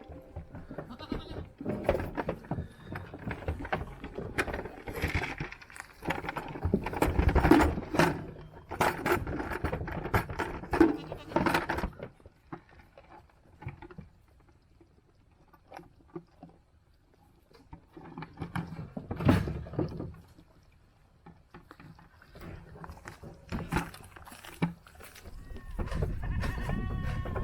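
Spanish goats bleating, with scattered knocks and clatter as they move about; one long bleat near the end.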